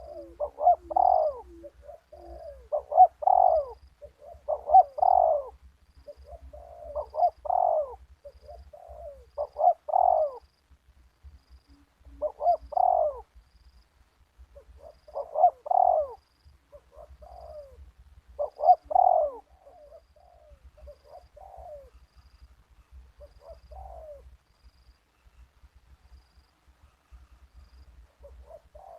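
Spotted dove cooing close by, its phrased call repeated about every two seconds, about ten times, then fainter and sparser in the last several seconds.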